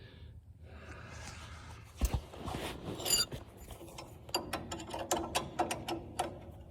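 Ratchet wrench clicking in quick strokes, about five clicks a second through the second half, as nuts are run down on a grinder mixer's clutch assembly; a single metal clank and some handling of parts come before it.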